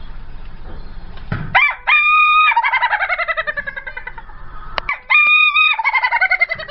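Ayam ketawa rooster crowing twice: each crow opens with a short held note and then breaks into a long run of rapid, stuttering notes falling in pitch, the 'laughing' crow the breed is kept for. The second crow starts about five seconds in.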